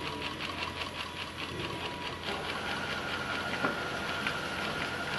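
Industrial ox-horn (post-bed) bag sewing machine running and stitching, its needle going in a fast, even ticking rhythm. About two seconds in a steady high whine sets in, with a single sharper click partway through.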